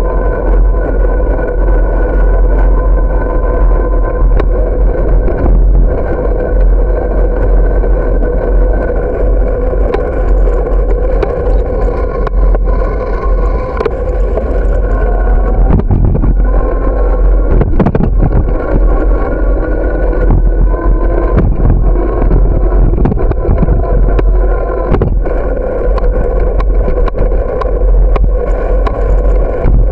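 Riding noise from a camera on a moving bicycle on a paved path: wind rumbling on the microphone over tyre and frame noise with a steady hum, and sharp knocks and rattles as the bike goes over bumps, clustered about halfway through.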